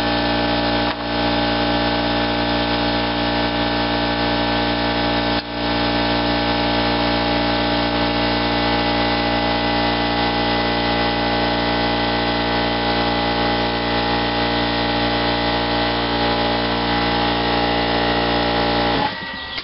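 A steady machine hum with many even overtones and no change in pitch, broken only by two brief dips, cutting off just before the end.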